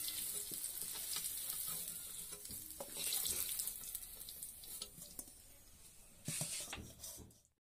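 Potatoes sizzling in hot oil in a black kadai, with scattered clicks and scrapes of a spatula against the pan as the pieces are lifted out into a steel bowl. The sizzling fades toward the end.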